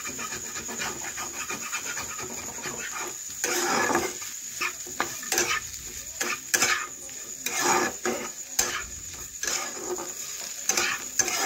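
A spatula scraping and turning diced potatoes and pointed gourd around a nonstick kadai as they fry, in a run of uneven scrapes and stirs that grows busier from about three and a half seconds in.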